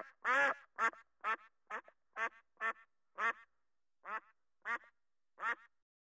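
Duck quacking: a series of about a dozen short quacks, roughly two a second, which stop shortly before the end.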